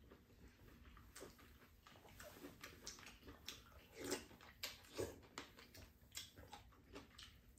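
Faint eating sounds from two people at the table: slurping from spoons and chewing, with many short mouth smacks and clicks, the loudest about four and five seconds in.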